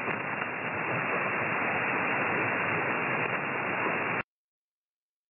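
Single-sideband receiver hiss and band static from a Flex software-defined radio, heard through its voice filter, so the hiss sounds narrow, with no highs. It cuts off abruptly about four seconds in.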